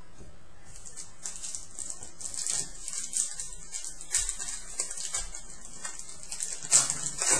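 Trading cards and their packaging being handled: irregular hissy rustling and sliding of card stock, with a sharper snap near the end.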